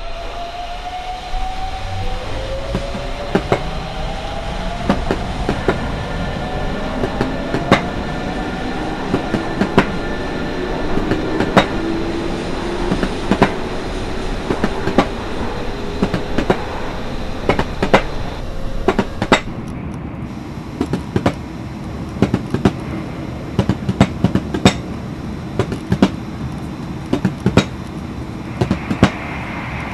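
An electric train pulling away and running, with a motor whine that rises in pitch through the first two thirds and irregular sharp clacks of wheels over rail joints.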